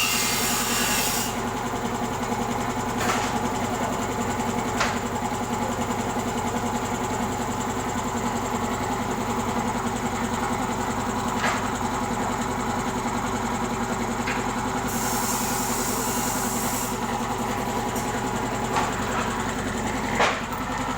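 Newly rewound 1.5 hp air compressor motor running steadily on test, a constant hum with a few light clicks. A high hiss stops about a second in and comes back for about two seconds near two-thirds of the way through.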